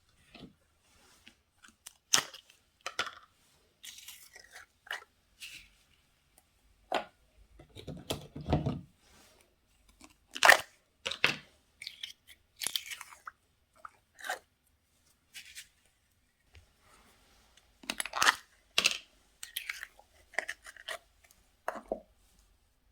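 Slime being squeezed and worked by hand, giving irregular sharp crackles and pops with a heavier, deeper squish about eight seconds in.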